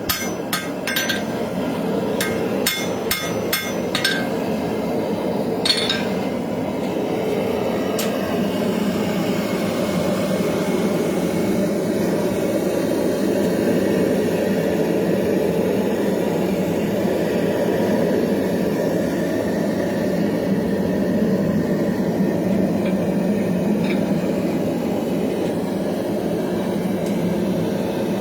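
Hand hammer striking hot knife steel on an anvil to smooth out hammer marks: quick flurries of ringing blows in the first few seconds, and one last strike at about six seconds. Under it a forge runs with a steady low rushing noise, which carries on alone after the hammering stops.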